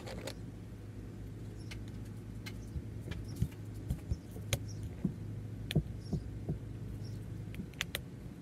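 An iPod being fitted into its cheetah-print case by hand: a series of irregular small clicks and taps as the case is pressed and snapped on and the device is handled on the table, over a low steady hum.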